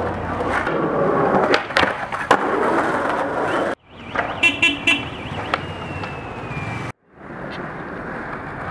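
Skateboard wheels rolling over stone paving, with a few sharp clacks of the board. After a sudden cut, street noise with a few short car-horn toots.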